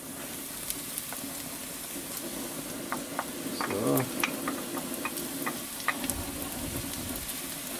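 Onion, garlic and ginger sizzling in a hot wok with fried pork pieces, a steady frying hiss, with scattered clicks of a wooden spatula scraping and tapping.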